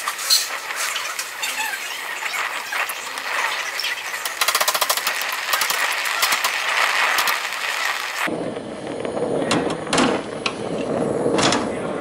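Brazing torch flame hissing steadily on a copper refrigerant line at a refrigerator compressor, with a brief rapid flutter of ticks in the middle. The hiss cuts off abruptly about two-thirds through, followed by a few knocks and clicks of handling.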